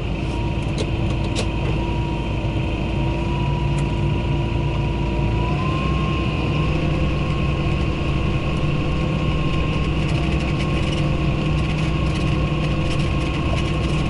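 Tractor engine running steadily, heard from inside the cab, with a constant whine over the engine hum; the engine note shifts slightly about five and a half seconds in.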